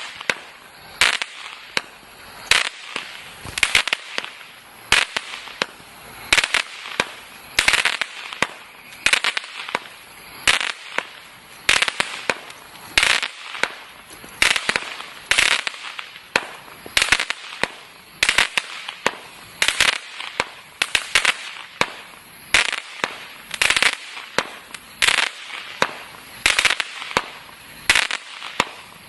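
Total FX "Crackling Wood" firework going off shot after shot, about one a second. Each shot is a sharp report followed by a brief spray of crackling.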